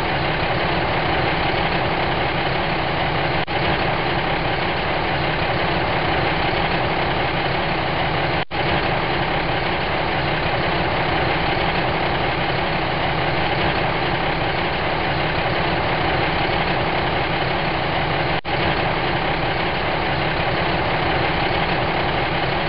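Truck engine idling steadily, an added sound effect rather than the toy itself, with three brief dips in level.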